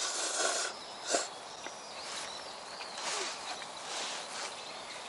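Noodles being slurped in short noisy bursts while eating tonkotsu ramen, with one sharp click about a second in.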